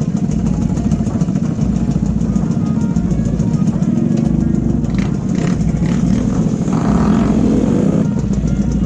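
Vespa scooter engines running in a group, idling while stopped, with the engine note picking up near the end as the scooters pull away.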